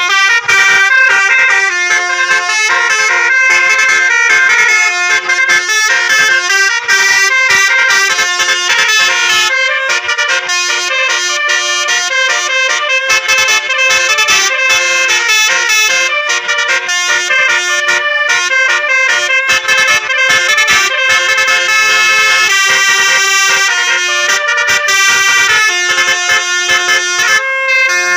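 Tour bus basuri telolet horn playing a melody: a loud, unbroken run of multi-tone horn notes stepping up and down in pitch.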